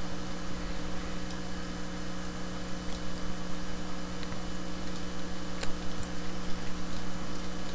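Steady electrical mains hum and hiss from the recording setup, with a few faint mouse clicks.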